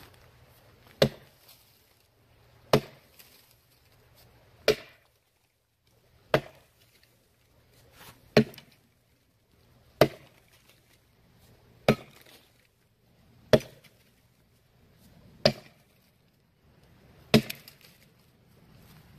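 Vintage Russian Topor axe chopping into a frozen hardwood log: ten sharp chops, one about every two seconds.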